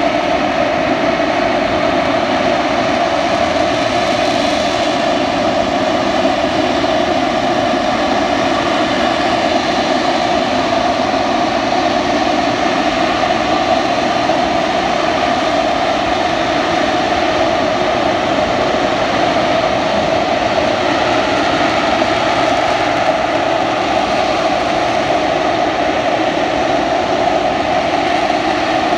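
AV-8B Harrier II Plus jump jet hovering, its Pegasus turbofan running steadily and loudly, with a strong whine held at one pitch over the jet noise.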